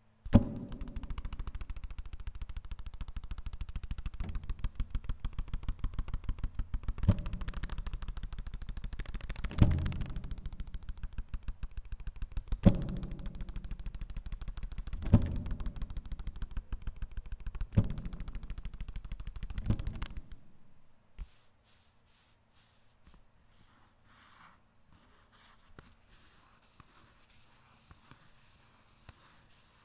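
Paper percussion playing a fast rattling roll with heavier low hits about every two to three seconds. It stops abruptly about twenty seconds in, leaving only faint crinkles and ticks of paper being folded.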